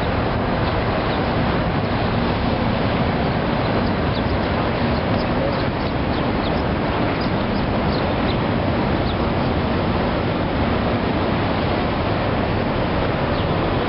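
Steady outdoor rush of wind on the microphone mixed with the river's water noise, even in level throughout with no single sound standing out.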